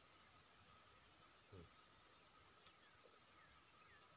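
Near silence over a faint, steady, high insect buzz, with a soft low thump about one and a half seconds in and a few short falling chirps near the end.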